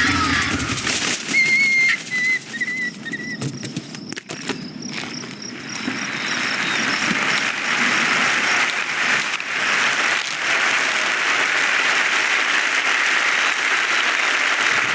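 Cartoon sound effects: a few short whistled chirps and a quick run of light ticks, then from about six seconds a steady wash of a small crowd cheering and clapping.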